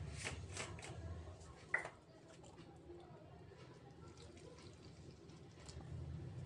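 A few light clinks of a steel spoon against a steel bowl in the first two seconds, the sharpest near two seconds in, then faint water poured from a plastic bottle onto gram flour in the bowl near the end.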